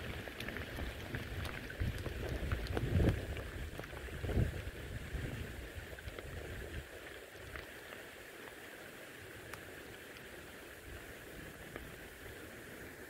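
Rain falling on a wet road, a steady hiss with scattered close drops ticking. Dull low rumbles come and go in the first few seconds, then the rain goes on alone, a little quieter.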